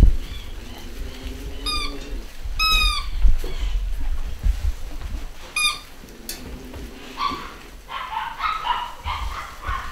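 Basset Hound puppies at play: short high yelps near two and three seconds in and again near six seconds, then a run of whines and grumbles over the last few seconds, with bumping and scuffling underneath.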